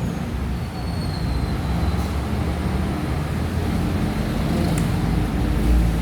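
Steady low rumbling background noise, with a faint high falling whine about a second in.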